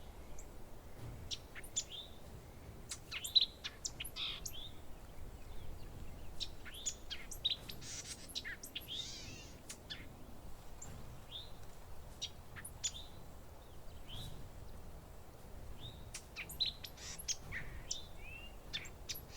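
Sparrows chirping: a busy, irregular run of short, high chirps.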